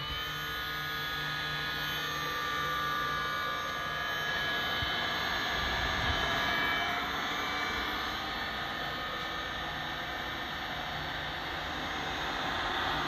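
AXYZ CNC router running: a steady high whine with several held tones over a broad machinery hum.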